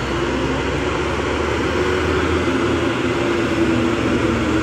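Heavy diesel trucks passing close by, led by a Mitsubishi Fuso 6x4 low-bed truck: a steady engine drone with tyre and road noise.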